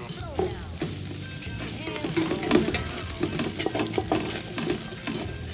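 Ground beef frying in its own fat in a hot pan, a steady sizzle dotted with many small crackles, as the browning meat is stirred and scraped off the pan's bottom.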